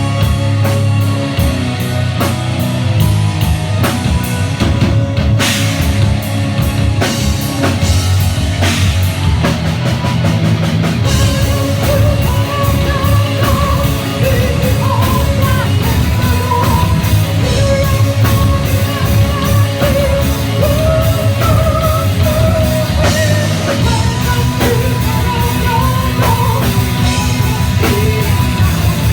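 Metal band playing live: a drum kit hitting steadily under distorted guitars, the drumming getting denser about eleven seconds in. A melodic lead line rises and falls over the top from then on.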